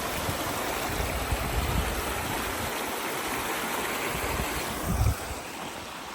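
Creek water running steadily over rocks, an even rushing noise, with a low thump about five seconds in.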